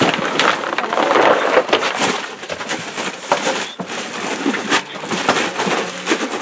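Busy clatter of knocks and plastic rustling as crates, styrofoam boxes and plastic bags are handled while packing fish, heaviest in the first two seconds.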